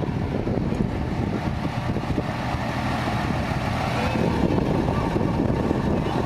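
Engine of a lorry carrying a parade float, running steadily with a low rumble.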